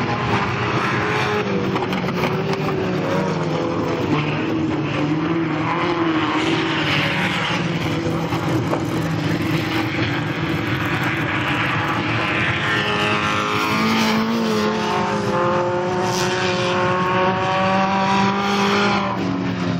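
Several sport compact race car engines running at high revs together, their pitch rising and falling over and over as the cars accelerate and lift around the track.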